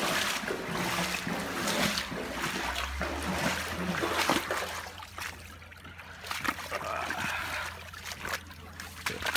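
Footsteps splashing through shallow ditch water, with water trickling; the splashing is louder in the first half.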